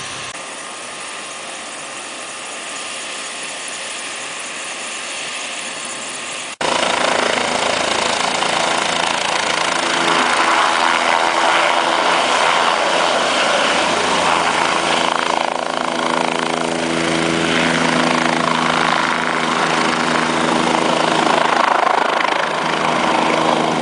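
Medical helicopter running loud and close, its turbine and rotor making a steady noise with an engine drone under it, as it lifts off from the snow. The level jumps suddenly about six and a half seconds in; before that the same kind of sound is quieter.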